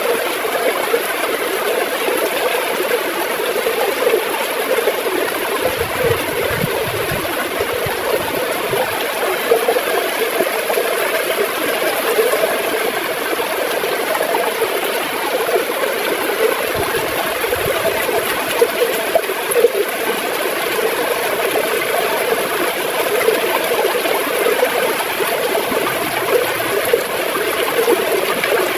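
River water gurgling in a steady, continuous flow.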